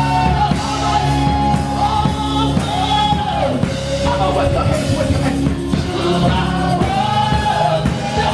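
Worship music with singing over a drum kit and bass, a sung melody line carried throughout.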